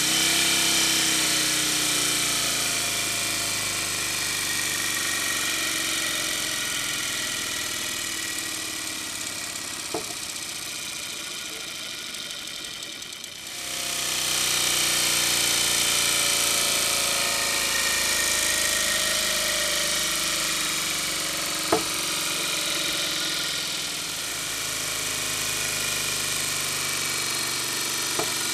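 Gasparin G63V12 twelve-cylinder 90° V CO2 model-airplane motor running with its propeller spinning, a steady buzzing run. The level eases slowly over the first half, jumps back up about halfway through, and a few short clicks stand out, the loudest near the three-quarter mark.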